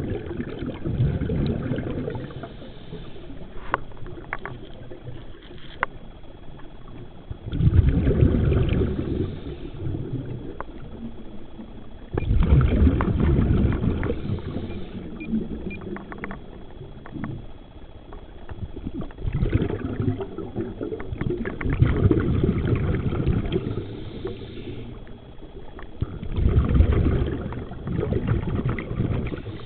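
Scuba diver's breathing heard underwater: loud bursts of exhaled bubbles rumbling and crackling every few seconds, between quieter stretches. A faint steady high tone runs underneath.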